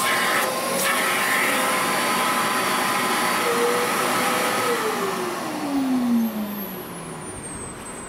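A wet-extraction upholstery vacuum running with a steady whooshing whine. About five seconds in it is switched off and the motor's pitch falls as it winds down, so the sound gets quieter.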